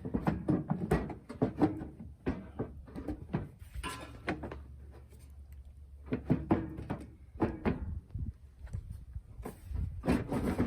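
A plastic headlight housing being wiggled and pulled forward out of a truck's front end: an irregular run of knocks, clicks and scraping, with a low steady hum underneath.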